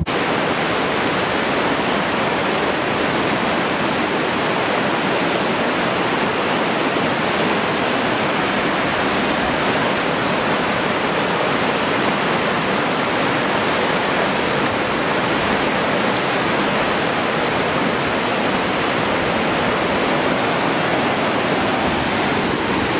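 Fast river rapids, white water rushing steadily.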